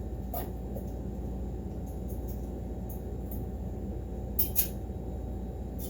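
Steady low hum with a few light handling clicks. Two sharper clicks come close together about four and a half seconds in.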